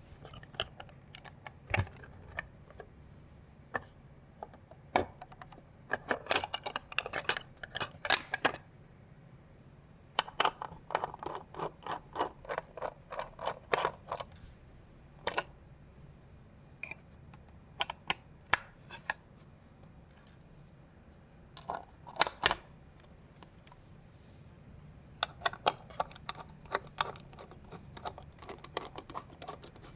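Hands handling PC parts and their packaging: scattered sharp clicks and knocks, with three spells of rapid clicking and rustling lasting a few seconds each.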